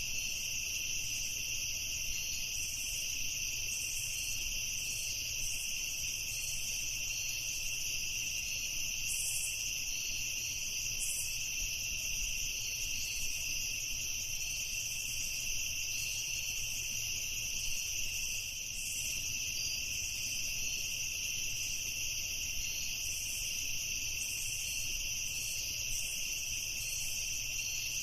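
Crickets chirping in a steady night chorus: several high, continuous trills layered together, with a fainter pulsing chirp above them.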